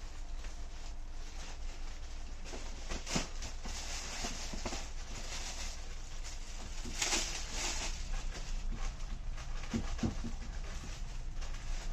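Rustling and handling noise from garments being moved and shown, with louder crinkly rustles about 3 and 7 seconds in, over a low steady hum.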